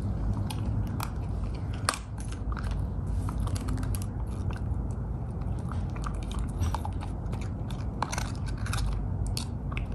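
Puppy gnawing a cooked lamb rib bone, with irregular crunching and cracking as her teeth work on the bone.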